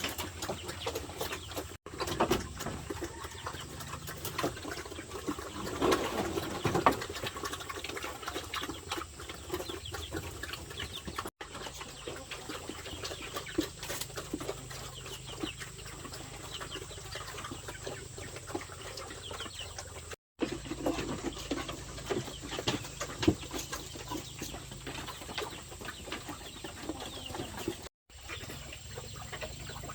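Farm poultry clucking and calling, many short calls overlapping.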